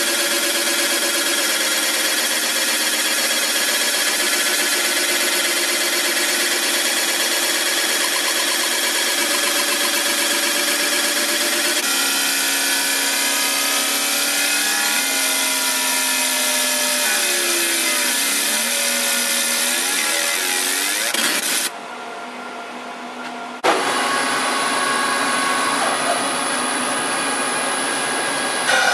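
A 50 W fiber laser marking machine engraving, heard as a dense hiss with thin whining tones that step and glide in pitch as the mark is traced. About 22 seconds in the sound dips for two seconds, then a CNC milling machine cutting metal takes over, with a steady high whine.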